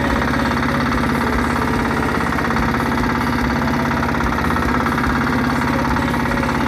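Small fishing boat's engine running steadily, with a fast, even firing rhythm.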